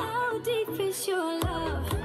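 Pop dance track with vocals over a heavy bass beat, played over loudspeakers for a dance routine; the bass drops out for a moment near the middle and comes back in.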